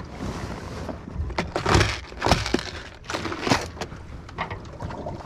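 Gear being handled on a boat deck: an irregular run of knocks, clicks and rustles, with the loudest knocks about two and three and a half seconds in.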